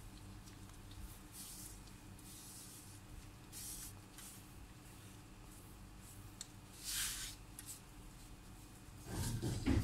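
Soft, brief swishes of latex-gloved hands rolling a log of cinnamon-roll dough on a granite countertop, over a steady low hum. A louder, lower noise comes in near the end.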